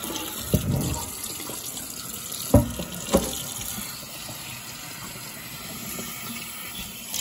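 Kitchen tap running into a pot in the sink, the stream splashing as the pot is rinsed out, with a few knocks about half a second, two and a half and three seconds in.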